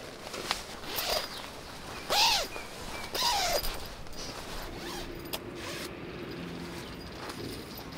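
Nylon sleeping bag being handled and zipped: fabric rustling, with two louder rasping zipper strokes about two and three seconds in.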